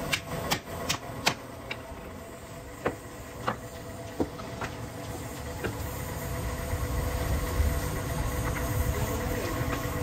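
Hammer knocking nails into a wooden frame: four quick strikes in the first second and a half, then scattered single taps. A steady low rumble runs underneath and grows louder in the second half.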